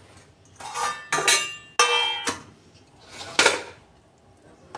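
A stainless steel thali plate being set down and moved on a stone counter: a few metallic clanks, the loudest about two seconds in with a brief ring.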